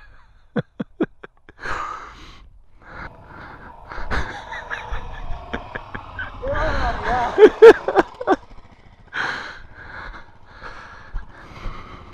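A rider laughing and gasping breathily into his helmet microphone, loudest in a run of short laughs a little past the middle, over the low running of dirt-bike engines.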